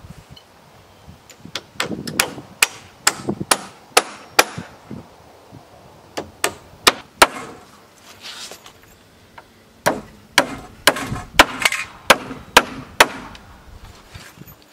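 Hammer driving nails into wooden framing lumber: runs of sharp blows, about two to three a second, with short pauses between nails.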